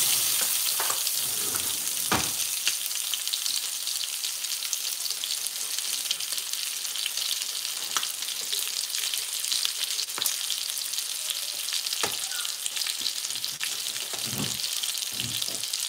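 Chicken breasts frying in oil in a skillet: a steady sizzle, with a few light clicks scattered through it.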